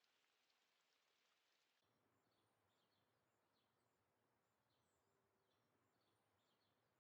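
Near silence, with faint short high chirps from about two seconds in.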